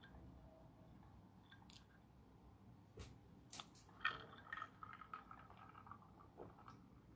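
Faint handling sounds of a drinking glass of lemon water: a few scattered clicks, then from about four seconds in a cluster of light glassy clinks and knocks as the glass is picked up and drunk from.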